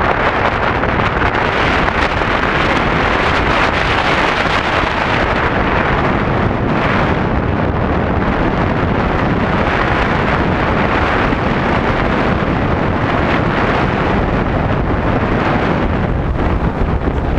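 Steady wind rushing over a camera microphone on a moving Yamaha Tricity scooter, mixed with the scooter's running and road noise.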